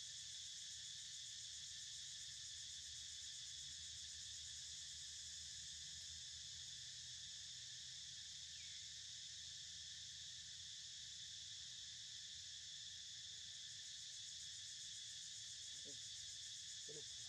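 Faint, steady chorus of insects buzzing in several high bands, with a low rumble beneath.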